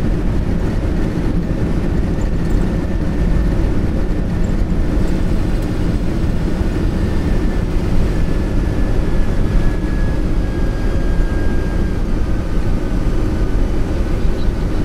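Boeing 747-200's four Rolls-Royce RB211 engines in reverse thrust during the landing rollout, heard from the cockpit as a loud, steady rush with runway rumble. A faint whine falls slowly in pitch through the second half as the jet decelerates.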